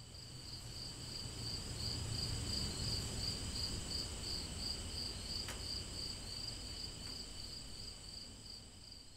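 Crickets chirping in a steady, high pulsing trill over a low background rumble, fading in at the start and out near the end, with a single faint click about halfway through.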